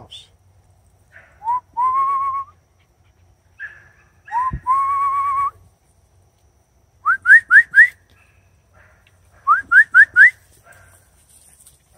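A person whistling to call a pack of Airedale terriers. There are two long whistles, each sliding up and then held, and then two quick runs of four short rising whistles.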